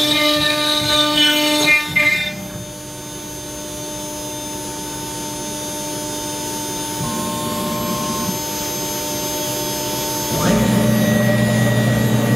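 CNC router running: a machine whine that falls in pitch and stops about two seconds in, leaving a steady electrical hum. About ten seconds in, a louder steady machine sound starts.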